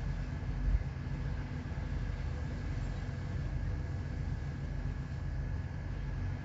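A ship's engine running steadily on board: a low drone with a faint steady whine above it, and a brief low thump under a second in.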